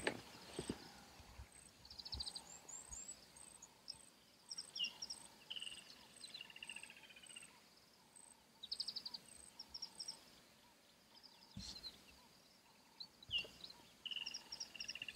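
Bush ambience of birds calling, with whistles, quick trills and downward-sliding calls, over a faint high-pitched chirp repeated about twice a second. A few soft knocks come in, near the start and again about two seconds before the end.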